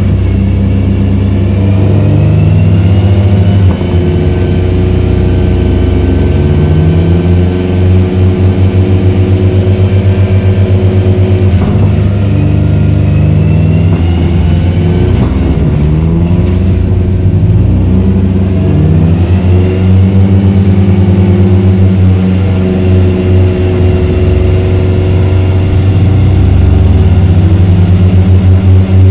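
Tuned 1000+ bhp Audi S3 engine under load, revving hard in repeated climbs in pitch, with drops between them like gear changes. In places it breaks into a fast pulsing stutter.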